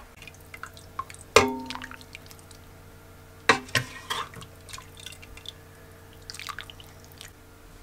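Kitchenware clattering as a meal is served: a sharp knock about a second and a half in that rings on briefly, two more knocks a couple of seconds later, and lighter clicks and ticks in between.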